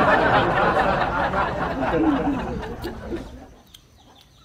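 Loud laughter from two women, dying away after about three and a half seconds.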